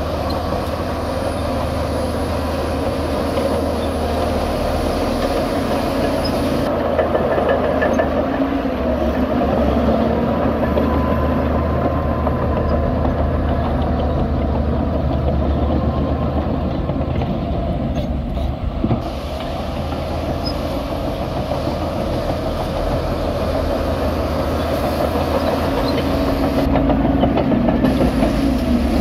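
Shantui DH17 C2 crawler bulldozer's diesel engine running steadily under load as it pushes a pile of dirt, with a constant clatter from its steel tracks and a few sharp clanks about two-thirds of the way through.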